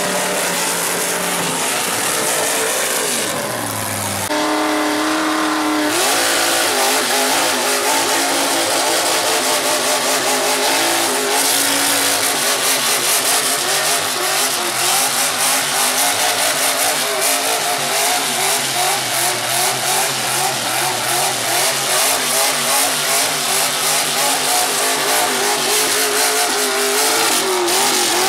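Big-block V8 engines of mega mud trucks revving hard at high rpm, the engine note wavering up and down. The pitch falls a few seconds in, then jumps to a new note, and the loudness pulses quickly through much of the later part.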